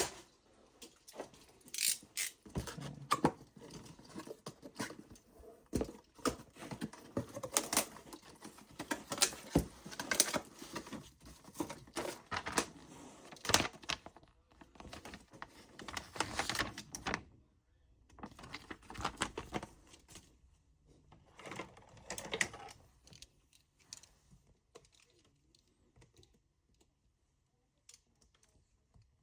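Unboxing handling sounds: cardboard box and plastic packaging rustled, with many irregular clicks and knocks as small hard parts are handled. Busy for the first half or so, then sparser and dying away to near quiet towards the end.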